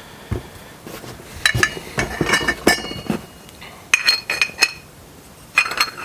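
Small loose metal parts clinking and knocking together as they are handled, in several short clusters of sharp clicks with a brief metallic ring.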